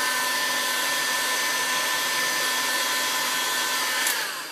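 Electric heat gun blowing hot air steadily, with a steady whine over the rush of air, as it shrinks a heat-shrink sleeve over a soldered wire joint. It is switched off about four seconds in, and its whine falls in pitch as the fan runs down.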